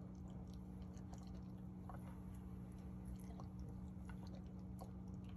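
Quiet room tone: a steady low hum with faint, scattered small clicks and ticks.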